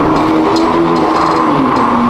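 Exhaust note of a 2024 Hyundai Elantra N with a titanium resonator-delete mid-pipe on the stock exhaust, running at fairly steady revs. Its pitch drifts gently up and down.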